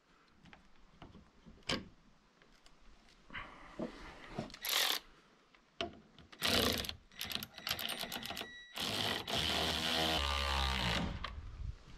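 Cordless drill driving a screw eye into a log post: a few short bursts of the motor, then a longer run of about two seconds near the end as the eye bolt goes in. Light clicks of hardware being handled come before.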